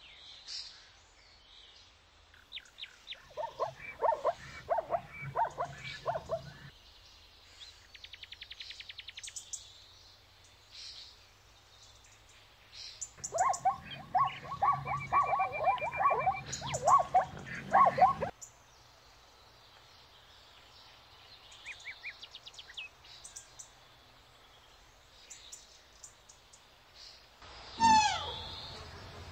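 Zebra calling in two bouts of quick, repeated barking yelps, a few seconds each, with small birds chirping faintly throughout. Near the end come louder high calls that slide down in pitch.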